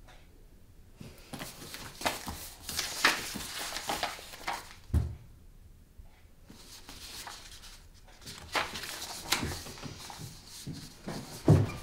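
Sheets of paper rustling and shuffling as they are handled, with a dull thump about five seconds in. The rustling stops briefly, then starts again.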